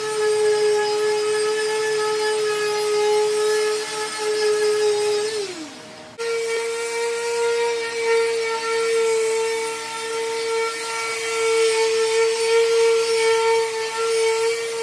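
Electric palm sander running steadily on pine tabletop boards, a constant motor hum with sanding noise. About five seconds in it winds down with a falling pitch. It briefly cuts out, then runs steadily again at a slightly higher hum.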